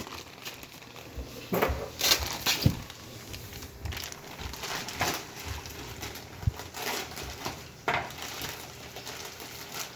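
Packaging being handled while TV accessories are unpacked: scattered rustles and crinkles with a few light knocks, the busiest stretch about two seconds in.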